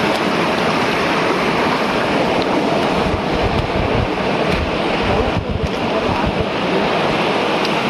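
Waterfall water rushing, a steady loud noise. Wind rumbles on the microphone through the middle few seconds.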